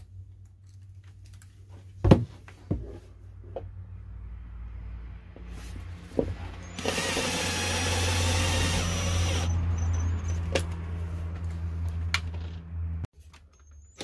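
Cordless drill-driver running, driving in a screw to fix the heater's base plate down, its motor whirring loudly for about two and a half seconds in the middle. A few sharp knocks come before it, the loudest about two seconds in, and the sound cuts off suddenly about a second before the end.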